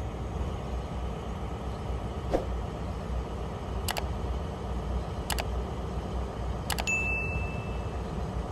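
Passenger train running with a steady low rumble. Four sharp clicks come at even spacing about a second and a half apart, and a short high beep sounds near the end.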